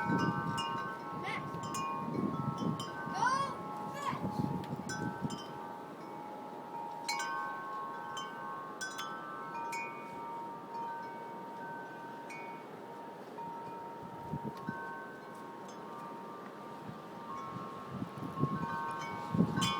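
Wind chimes ringing, several clear metal tones struck over and over and left to ring on.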